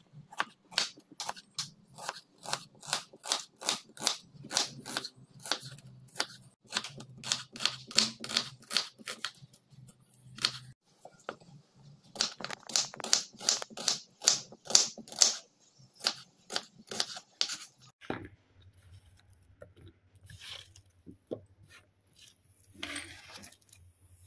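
Chef's knife slicing a red onion on a wooden cutting board: a crisp crunch and knock on the board with each stroke, about three a second. The cutting comes in two long runs with a short break in between, then only a few scattered knocks near the end. A low steady hum runs underneath.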